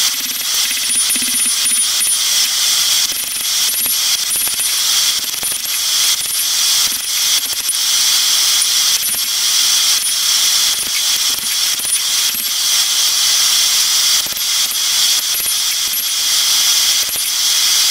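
Hand hammer striking a hot steel billet on an anvil: repeated metallic blows over a steady hiss.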